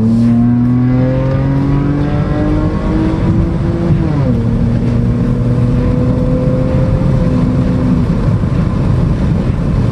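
2017 Chevy Impala's V6 with resonator and muffler deleted, heard from inside the cabin under full-throttle acceleration. Its note climbs for about four seconds, drops as the transmission shifts up, then holds steady before fading near the end, leaving road noise. No backfire.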